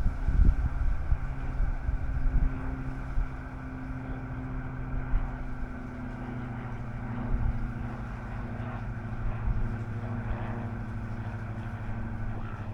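A steady low mechanical drone with an even pitch, with wind buffeting the microphone in the first few seconds.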